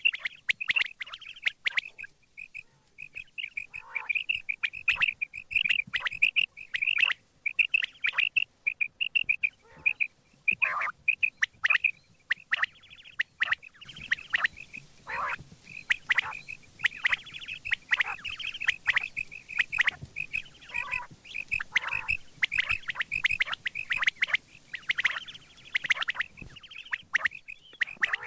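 Quail calling over and over: rapid strings of short, high chirping notes, with now and then a longer call that sweeps downward.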